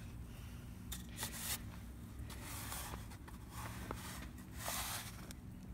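Metal shovel blade scraping and pushing loose dry dirt, in several short strokes, with shoes scuffing over the soil.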